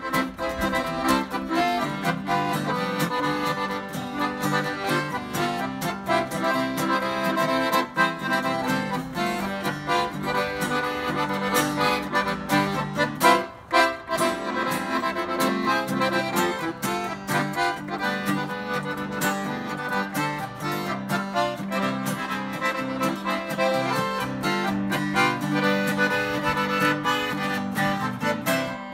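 Piano accordion and acoustic guitar playing a polka tune together, the accordion leading over the guitar's accompaniment, with a momentary break about halfway through.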